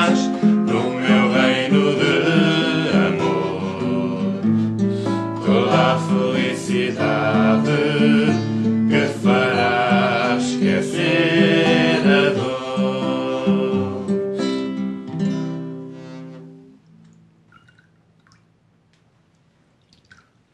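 Two or three voices singing a religious song to an acoustic guitar. The song ends about sixteen seconds in, its last chord dying away, followed by a few faint small clicks.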